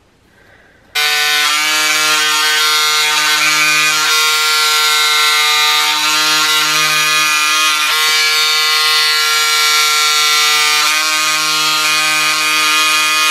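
Pink Power electric cordless scissors switching on about a second in and running with a steady whine as the motor-driven blade cuts through four layers of Ponte Roma knit fabric, cutting slower through this thick knit.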